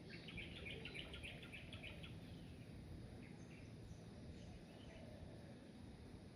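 A bird calling: a quick run of high chirps for about two seconds at the start, then a few scattered faint chirps over a steady low background rumble.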